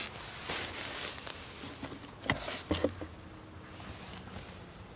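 Handling noise: light rustling with a few sharp clicks, the loudest a little over two seconds in.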